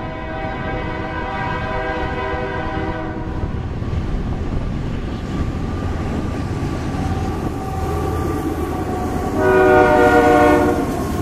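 Union Pacific coal train approaching with its lead GE AC44CW-series diesel locomotive sounding a multi-tone air horn chord, which stops about three seconds in. The locomotive's engine and wheels give a steady low rumble that grows as it nears, and the horn blasts again, louder, for about a second as the locomotive passes close by near the end.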